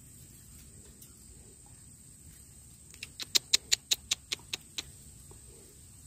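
An animal's rapid call: about ten sharp chirps at roughly five a second, starting about three seconds in, quickly loud and then fading away.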